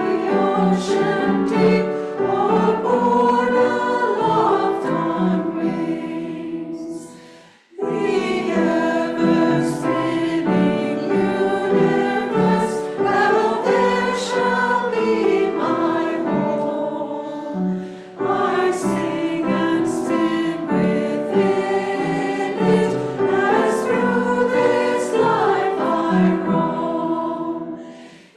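A choir singing in long sustained phrases, breaking briefly about seven and a half seconds in and dipping again around eighteen seconds.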